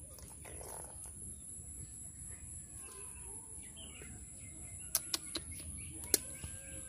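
Birds chirping faintly over a steady high-pitched background tone. A few sharp knocks stand out: three close together about five seconds in and a louder one a second later, as live fish are handled in an aluminium basin.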